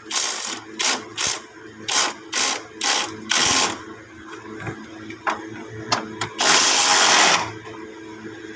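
Ratchet wrench being worked in short repeated strokes, its pawl clicking, then one longer ratcheting run about six and a half seconds in.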